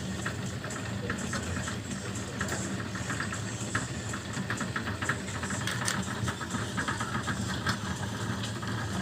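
Ford Transit engine idling steadily, with a light, irregular rattle over the steady running.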